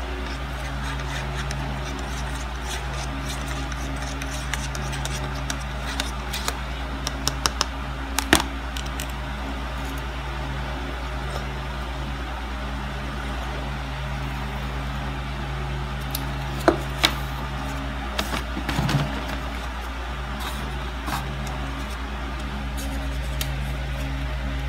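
A steady low hum runs throughout, with scattered faint clicks and a few sharper ticks, and a brief rustle about three-quarters of the way in.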